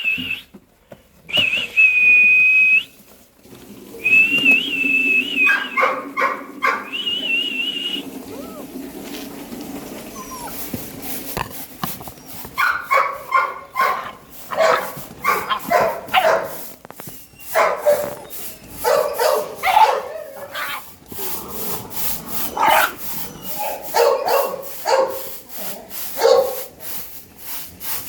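Great Dane puppies whining and yipping. The first several seconds hold long, high, wavering whines. After that comes a rapid run of short yips and barks.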